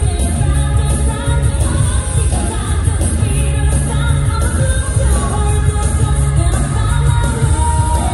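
Loud pop dance music with a sung vocal and a strong, pulsing bass beat.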